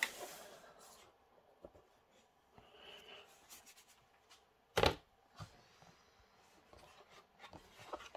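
Soft rubbing and scraping of a cardboard box and its foam insert as the top foam layer is lifted off, with one sharp knock a little under five seconds in.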